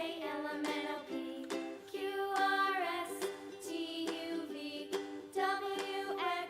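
Upbeat children's background music with plucked ukulele-like notes and a bright melody.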